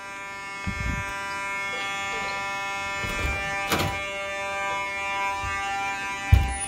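Electromechanical fire alarm horn buzzing steadily on one pitch. Dull thumps about a second in and near the end, and a sharp click just under four seconds in.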